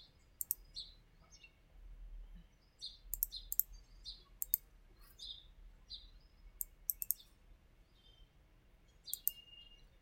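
Computer mouse buttons clicking several times, some clicks in quick pairs, with short bird chirps in the background.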